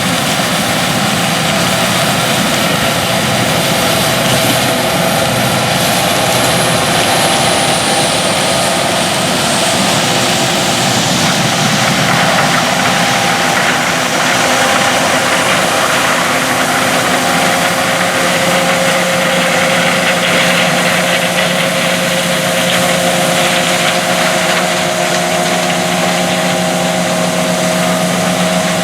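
John Deere S670 combine running steadily in the field, a constant machine drone with a low hum and a hiss. A faint high whine slides down in pitch a few seconds in.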